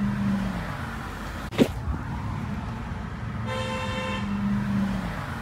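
A car horn sounds over passing street traffic: the tail of one honk at the start and a full honk about three and a half seconds in. A single sharp knock about a second and a half in is the loudest sound.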